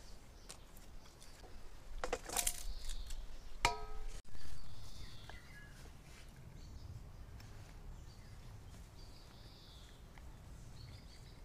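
Stainless steel mixing bowl clanking a few times as it is handled, about two to four seconds in. After that comes quiet garden ambience with faint bird chirps.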